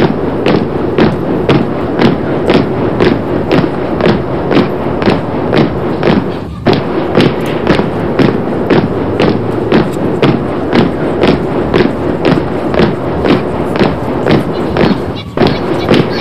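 A parade marching past to a steady beat, about two beats a second, over a continuous steady sound.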